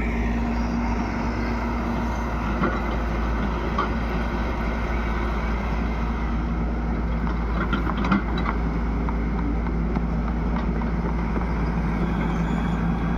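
Excavator's diesel engine running steadily, with a few short knocks about three, four and eight seconds in.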